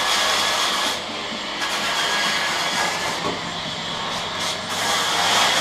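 Steady machine noise: an even hiss with a low hum underneath, dipping slightly in its upper part about a second in and again around the middle.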